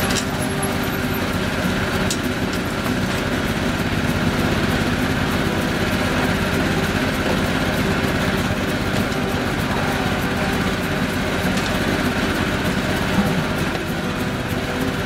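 A motor running steadily with an unchanging engine-like hum, and a single brief knock about thirteen seconds in.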